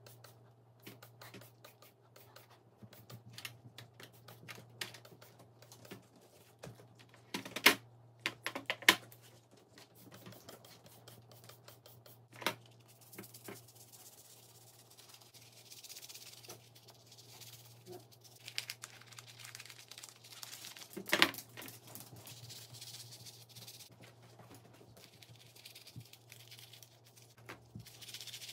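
Small parts and tools clicking and tapping as a Makita TD171D impact driver is taken apart by hand, with a few louder sharp knocks and, in the second half, a soft hiss.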